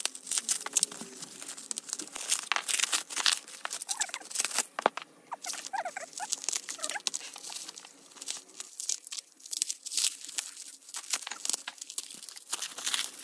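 Bubble wrap crinkling and crackling in quick irregular bursts as it is slit with a utility knife and peeled off stacked albums.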